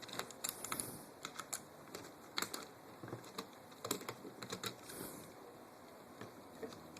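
Light, irregular clicks and taps of small screws and metal parts being handled while a handguard rail is fitted to a KWA LM4 airsoft rifle, busy for about five seconds and then sparse.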